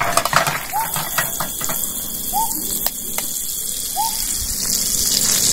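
Hot oil sizzling in a frying pan on a portable gas stove turned up high as eggs are cracked into it, with a few sharp taps and clicks; the sizzle grows louder near the end. A short chirp repeats about every second and a half in the background.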